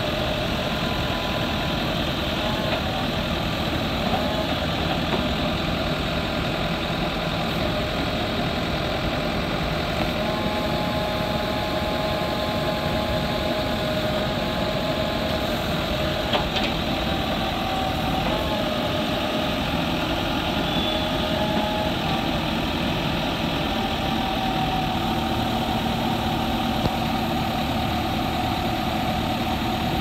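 JCB 4DX backhoe loader's diesel engine running steadily while the backhoe arm and loader are worked. Faint whining tones come and go over the engine sound, with a single brief knock about halfway through.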